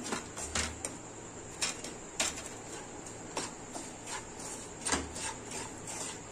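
Wooden spatula stirring and scraping semolina roasting in ghee with chopped nuts in a nonstick pan: irregular scrapes and light knocks.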